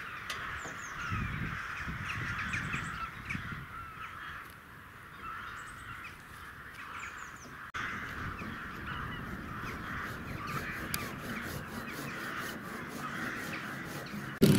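A large flock of corvids calling together, a continuous chorus of many short overlapping caws and chacks as the birds wheel overhead.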